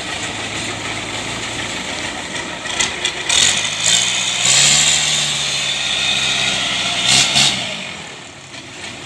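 Kubota DC70 combine harvester's diesel engine running, then revving up about three seconds in. Loud noisy surges come twice before the sound eases off near the end.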